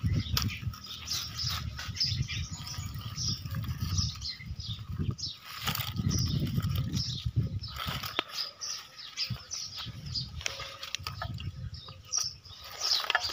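Small birds chirping over and over, with low scraping and rustling of dry soil as a toy backhoe's bucket is dragged through the dirt by hand.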